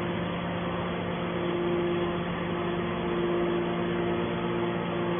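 Hydraulic baler running with a steady machine hum, a higher tone in it dropping out and coming back.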